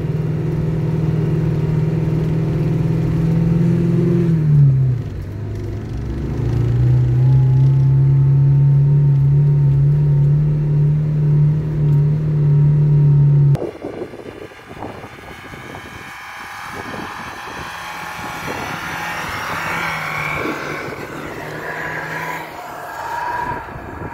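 Lada Niva engine pulling steadily while driving through snow; the revs drop and pick up again about five seconds in, as at a gear change. About halfway through the sound cuts abruptly to a quieter, noisier mix with a rising whine.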